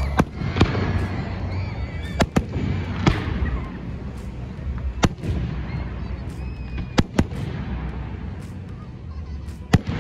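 Fireworks display: aerial shells bursting overhead, about eight sharp bangs at irregular intervals with a steady low rumble between them, the loudest bang near the end.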